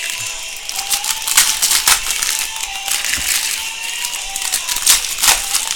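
Trading cards and foil pack wrappers being handled quickly by hand: rustling and crinkling broken by sharp snaps and clicks as the cards are flipped through, with faint music underneath.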